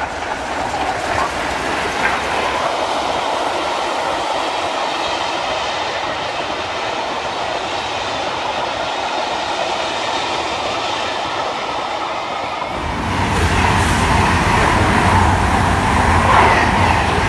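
A steam-hauled train of maroon coaches rolling past, with a steady clatter of wheels on the rails. About 13 seconds in, this gives way abruptly to the louder, deeper rumble of a CrossCountry Voyager diesel multiple unit passing through a station.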